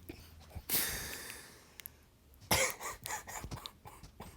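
A person coughing: a sudden breathy burst about a second in that fades away, and another sharp one about two and a half seconds in.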